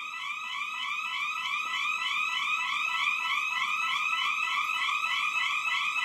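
Electronic alarm repeating a rapid series of short rising sweeps, about four a second, growing slightly louder.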